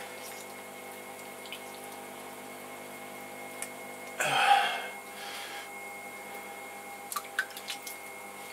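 Electric pottery wheel running with a steady motor hum while hands work wet clay on the spinning hump. There is a short louder wet squelch about four seconds in, a fainter one just after, and a few small clicks near the end.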